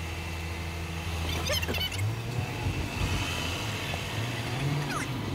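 Car driving on an expressway: steady engine and road noise, the engine note stepping up in pitch about two seconds in and again later. Brief chirping sounds come through about a second and a half in and near the end.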